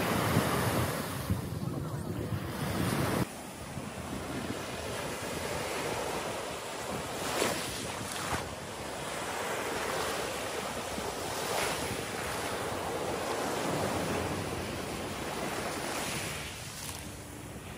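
Sea waves breaking and washing up a pebble shore, swelling every few seconds. Wind buffets the microphone for the first three seconds, then the sound cuts abruptly to calmer surf.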